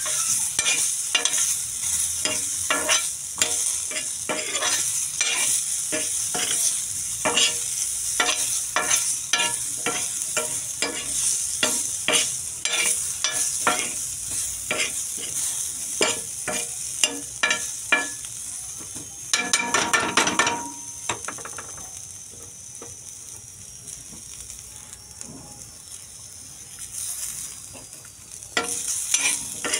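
Diced potatoes and green vegetable cubes frying in oil in a wide pan, with a steady sizzle while a metal spoon stirs and scrapes them in quick, repeated strokes. About two-thirds through there is a louder rush of noise, then the stirring mostly stops for several seconds and the sizzle carries on more quietly, before the stirring starts again near the end.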